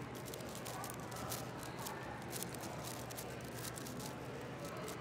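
Rapid clicking and rattling of a MoYu AoShi WRM 6x6 speed cube as its layers are turned quickly, over a steady background hum of a busy hall.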